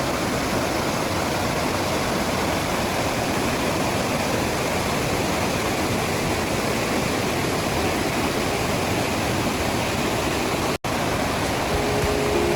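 Waterfall: a steady, even rush of falling water that cuts out for an instant near the end.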